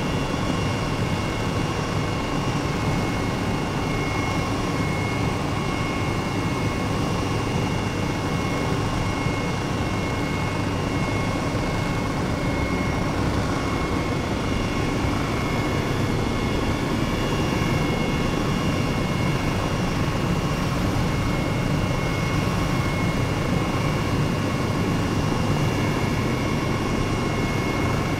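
Helicopter in flight, its engine and rotor making a constant, steady noise: a low rumble with a high whine on top.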